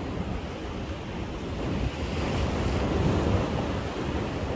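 Sea waves washing against a breakwater, with wind buffeting the microphone. The wash swells up about two seconds in and eases again near the end.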